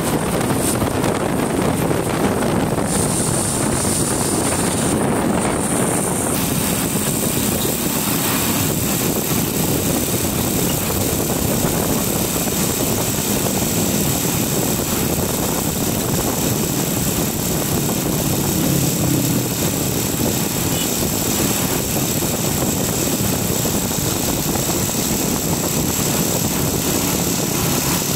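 Motorcycle engine running steadily while riding along the road, mixed with wind and road noise.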